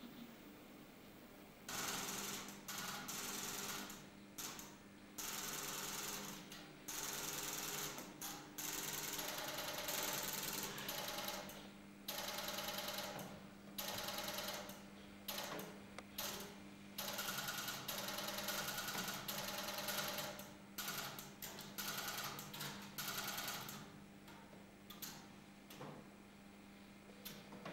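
Relays and switches of an electromechanical telephone exchange clattering in irregular spells of rapid clicking and buzzing, over a steady low hum. The switching starts about two seconds in and keeps stopping and starting.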